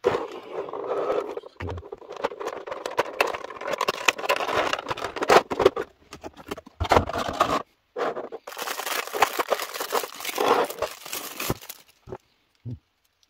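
Clear plastic blister tray crinkling and crackling with many sharp clicks as it is handled and flexed to free an action figure. The crackling stops about twelve seconds in, leaving a couple of small clicks.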